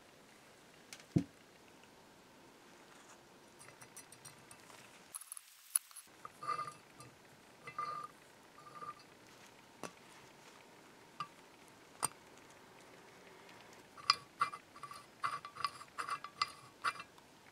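Metal parts of a restored cast-iron eyelet press clicking and clinking as its mechanism is worked by hand: a single low thump about a second in, then scattered sharp metallic clicks with a short ring, bunching into a quick run of clinks near the end.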